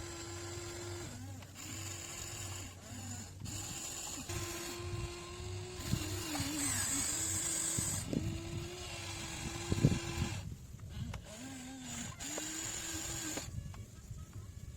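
Radio-controlled model excavator's motor whining in spells of a second or two, cutting in and out as the controls are worked, its pitch sagging briefly at times under load. A few sharp knocks as the bucket digs into hard soil, the loudest about ten seconds in.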